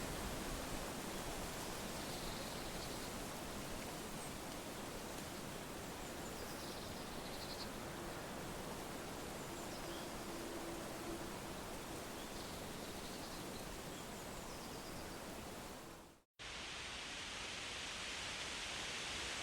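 Steady wind rustling through leaves, an even hiss, with a few faint high chirps now and then. About 16 seconds in the sound cuts out for a moment and comes back brighter and hissier, as at a splice between recordings.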